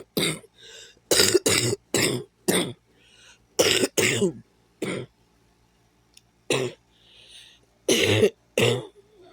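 A person coughing repeatedly, about a dozen short, sharp coughs in clusters of one to three, with faint breaths drawn in between some of them.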